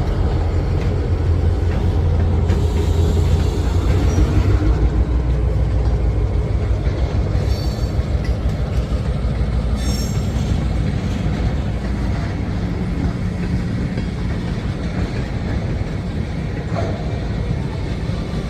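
Diesel locomotive and railcars moving during switching, with a steady low engine rumble that is heaviest in the first few seconds. A couple of brief faint high-pitched wheel squeals come near the middle.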